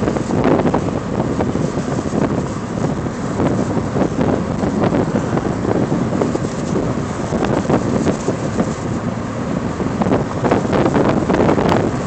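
Wind rushing in through a moving car's open windows and buffeting the microphone inside the cabin, a loud, fluttering rush over the car's road noise.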